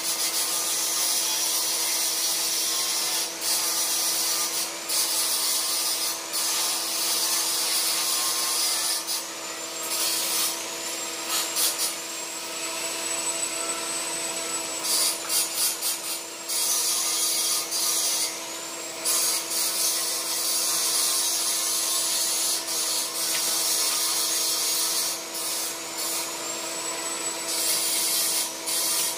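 Stick arc welding on steel window-grille bars: the arc gives a loud hiss in short runs, breaking off and restarting every second or few as one short weld after another is laid.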